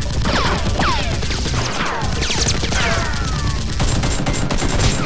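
Loud rapid automatic gunfire sound effect, a continuous stream of shots, with repeated falling whistles laid over it.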